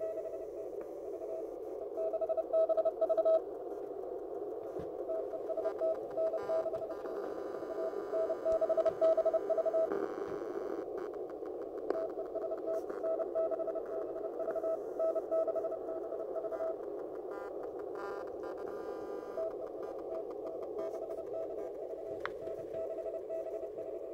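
Morse code (CW) from a NorCal 40A QRP transceiver: a single tone keyed in dots and dashes, in several runs with pauses between them. Under it runs a steady hiss of band noise through the receiver's narrow CW filter.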